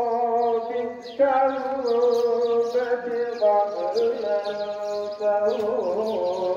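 Male voice chanting the funeral sela, the melismatic Islamic call announcing a death, in long held, wavering notes that step from pitch to pitch, with a short break about a second in before the next phrase.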